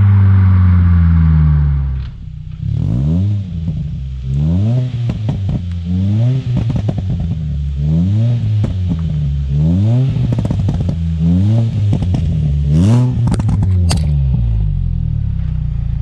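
Ford Fiesta ST150's 2.0-litre four-cylinder engine through a loud custom stainless exhaust: held at high revs, then dropped and blipped in a run of short revs about once a second, with pops and crackles on the overrun between blips. It settles to a steady idle near the end.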